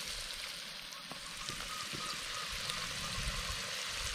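Flour-coated fish pieces shallow-frying in hot oil in a wok: a steady sizzling hiss with small scattered pops.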